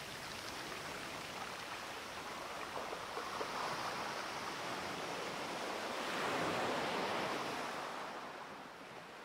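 Faint sea surf, an even wash of water noise that swells once about six seconds in and then fades out.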